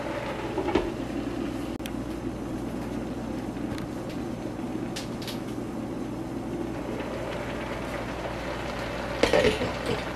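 Chicken sausage and vegetables sizzling steadily in a wok, with a short clatter of utensil and glass lid about a second in and a louder clank of the glass lid against the wok near the end.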